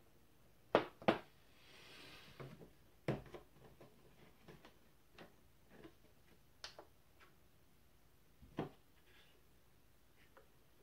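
Handling noise on a wooden desktop: a camera prism finder housing and a plastic bottle being set down and picked up. This gives scattered sharp clicks and knocks, the loudest two close together about a second in, with a brief rustle around two seconds.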